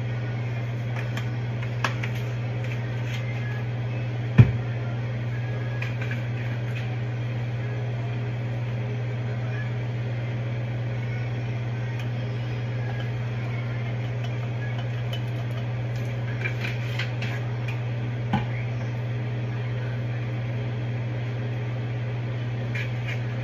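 Steady low hum of a kitchen range-hood fan. Over it come a few knocks as seasoning shakers and bottles are handled and set down, the loudest about four and a half seconds in, smaller ones near two seconds and near eighteen seconds.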